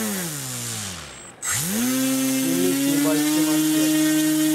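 A 2204 1400 kV brushless outrunner motor turning an 8x4 propeller on a thrust stand: its whine falls steadily in pitch as it spins down, nearly stops about a second and a half in, then rises sharply back to a steady high whine at full throttle.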